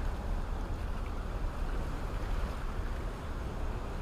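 Steady rushing roar of water pouring through an open dam, with wind rumbling on the microphone.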